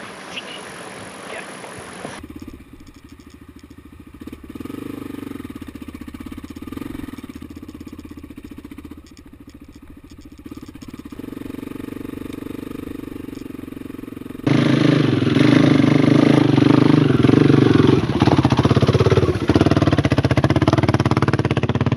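Dirt-bike engines: for most of the stretch a motorcycle runs steadily at a distance, then suddenly a much louder, close dirt-bike engine is running as it is ridden through rough ground.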